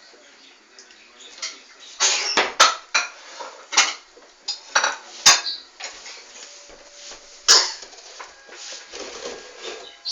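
Dishes and cutlery clinking and clattering: a run of short, sharp knocks and clinks, most of them between about two and eight seconds in.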